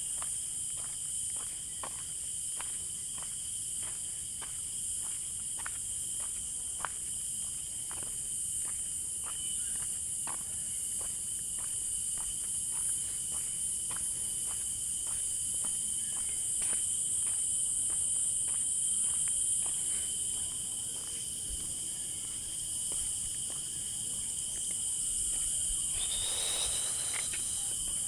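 Steady high-pitched insect chorus, with a second steady whine lower down, joined by regular footsteps about two a second for most of the time. Near the end there is a brief louder rushing noise.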